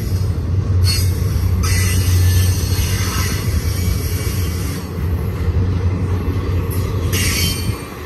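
Double-stack container cars of a freight train rolling past close by: a steady low rumble of wheels on rail, with spells of high wheel squeal about a second in, through the middle, and again near the end.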